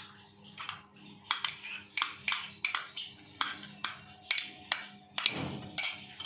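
Metal spoon tapping and scraping against a small ceramic bowl, knocking ginger and green-chilli paste out into a steel dish: a quick run of sharp clinks, about three a second.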